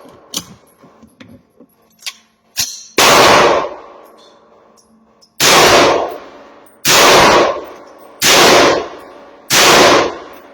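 Five shots from a 16-inch AR rifle chambered in 300 Blackout, fired one at a time about one and a half to two and a half seconds apart, each report sharp with a short ringing tail. A few light clicks come in the first few seconds before the first shot.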